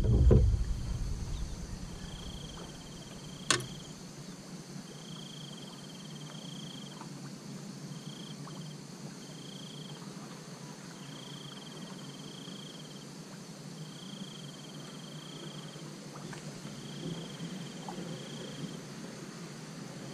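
An insect trilling a single high note in repeated bursts of a second or two. A low rumble fades out over the first second or two, and a single sharp click comes about three and a half seconds in.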